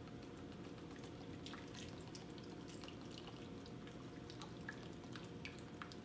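Coconut water poured from a carton into a bowl of fresh fruit, a faint trickle with small scattered drips and splashes.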